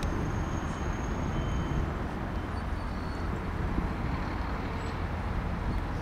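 Distant, steady low rumble of a Boeing 777 freighter's twin jet engines cruising high overhead, with a faint thin high tone in the first two seconds.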